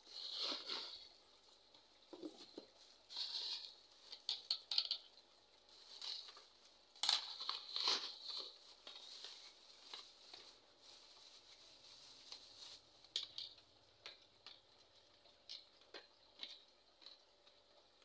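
Thin plastic bag crinkling and rustling as hands open it and rummage inside, in irregular bursts with a few sharp clicks of small packages being handled.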